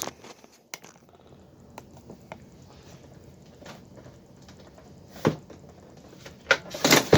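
Hard plastic clicks and knocks from a Milwaukee Packout rolling toolbox's telescoping handle being collapsed and set lower, with Kaizen collars on the handle. Light scattered clicks come first, then a few sharper clunks about five seconds in and near the end.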